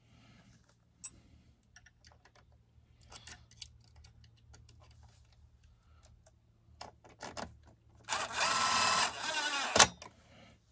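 Small tool parts clicking and being handled, then near the end a small motor-driven tool runs for about two seconds with a wavering whir and stops with a sharp click.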